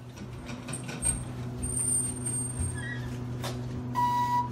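ThyssenKrupp hydraulic elevator arriving at a call: a steady low hum from the running hydraulic unit, a knock about three and a half seconds in, then a steady electronic beep from the hall lantern's arrival chime near the end.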